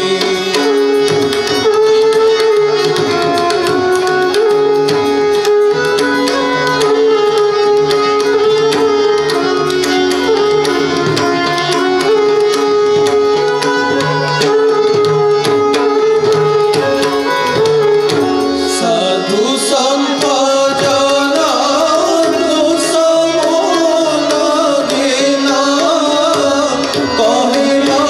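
Live Odia devotional bhajan: a tabla keeps a steady pattern under held harmonium notes, with a male voice singing, clearest in the second half.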